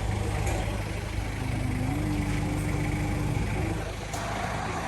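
Steady low rumble of motor vehicle traffic, with a faint held tone from about a second and a half in that lasts about two seconds.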